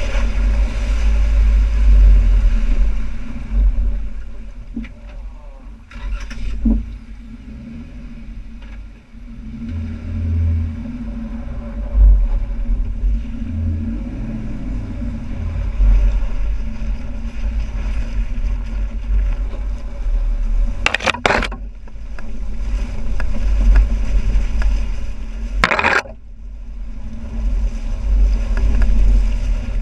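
2012 Jeep Wrangler Unlimited JK's 3.6-litre V6 running as it crawls off-road through a creek, a heavy low rumble on the fender-mounted camera. A few sharp knocks or scrapes come about two-thirds of the way in and again near the end.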